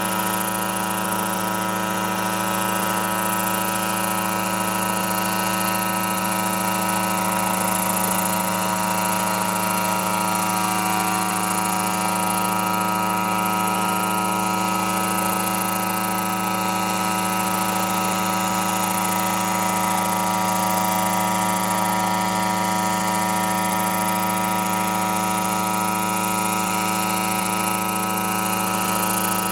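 Yamaha RMAX unmanned helicopter hovering, its two-stroke engine and main rotor making a steady, even drone with a stack of constant tones.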